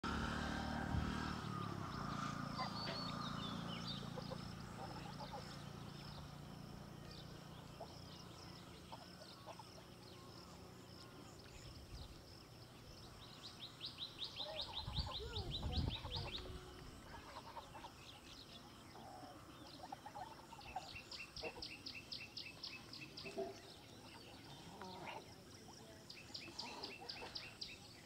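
Outdoor ambience with small birds chirping: three times a rapid, high trill runs for two or three seconds. A low hum fades away over the first several seconds, and a brief low rumble comes about halfway through.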